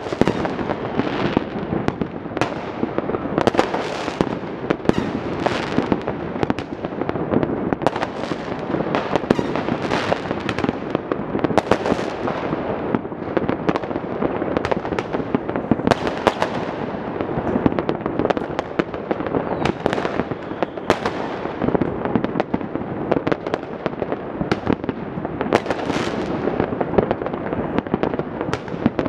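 Many fireworks and firecrackers going off across a city at once: a dense, unbroken crackle of sharp bangs and pops overlapping one another.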